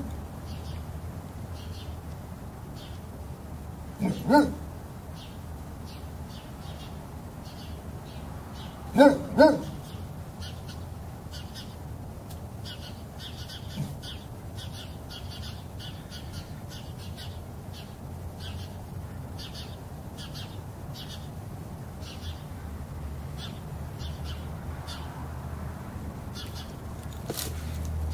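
Great Dane puppy barking: a double bark about four seconds in and two more barks close together about nine seconds in, with faint chirping in the background.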